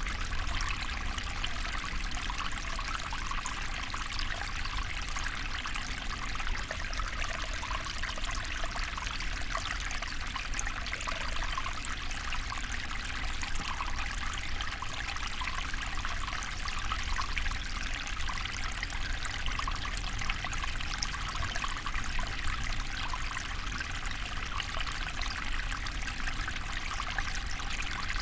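Small river flowing steadily, water trickling and babbling over stones.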